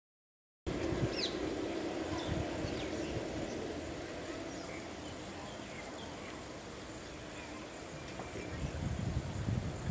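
Boeing 787 Dreamliner jet engines running on the runway as it lines up for take-off, a steady rumble that grows heavier over the last second or two as the exhaust turns toward the listener. Birds chirp briefly over a constant high insect drone. The sound cuts in from silence about half a second in.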